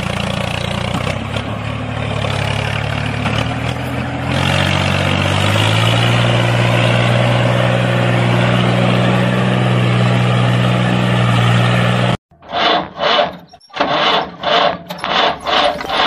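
Tractor engine sound running steadily, stepping up in pitch a few seconds in, then cutting off suddenly about twelve seconds in. Short rhythmic pulses, about three a second, follow to the end.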